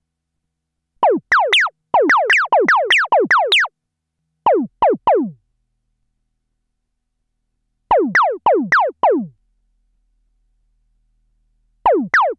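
Korg ARP Odyssey analogue synthesizer playing short zapping notes, each a quick downward pitch sweep. The notes come in bursts: three, then a fast run of about ten, then three, then five, then two near the end, with gaps of silence between.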